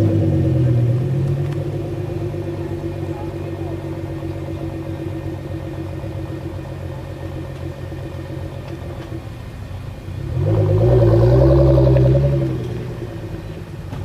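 Sports car engines running with a steady low note. About ten seconds in a car drives past, louder for around two seconds, its engine note rising and falling.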